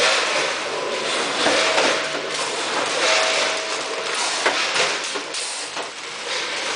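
Automatic vertical packing machine running: a steady mechanical clatter with occasional sharp clacks and, twice near the middle, a short steady whine.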